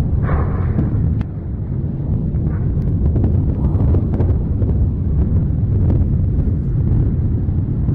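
Volcanic eruption at Mount Etna: a continuous deep rumble, with a few faint crackles.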